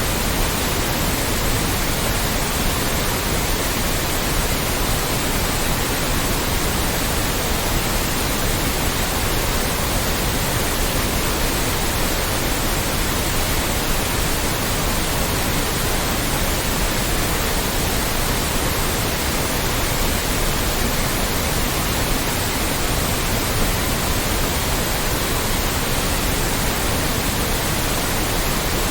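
Loud, steady white noise: an even hiss across all pitches that does not change.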